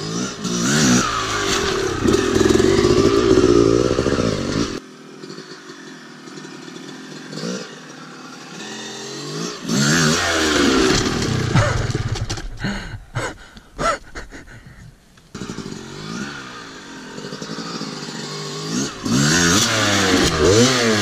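Two-stroke Yamaha dirt bike revving in repeated bursts, its engine pitch rising and falling, as the rider blips the throttle for a pivot turn and lifts the front wheel. A run of sharp clattering knocks comes in the middle, with the engine quieter between bursts.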